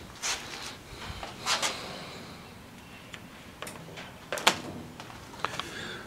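A few scattered knocks and clicks from handling while moving about, the loudest about four and a half seconds in.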